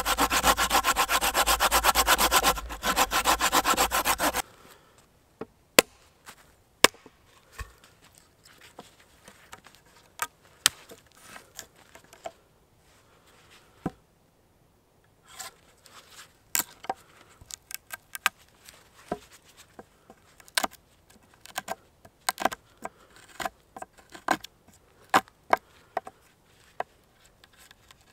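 Folding hand saw cutting through a dry wooden pole with fast back-and-forth strokes, which stop abruptly about four seconds in. After that, a knife carving a notch into a log: short, sharp cuts and snaps at irregular intervals.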